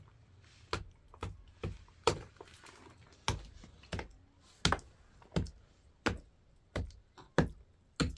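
A hand tool knocking on a mud-and-stone wall topped with clay bricks: a series of sharp, separate knocks, roughly one every half second to a second.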